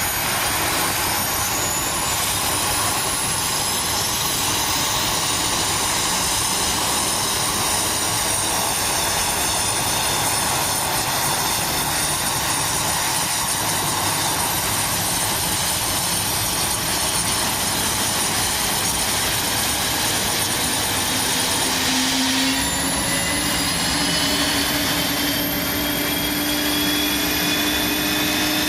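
Airbus A400M's Europrop TP400-D6 turboprop engines running, a steady rush of engine noise with high whines. A whine climbs in pitch over the first few seconds, and after a sudden change about 22 seconds in, several tones rise slowly together as the engines spool up.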